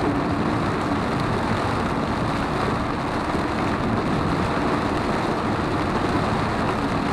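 Steady road and rain noise inside a car's cabin, driving on a wet highway in heavy rain.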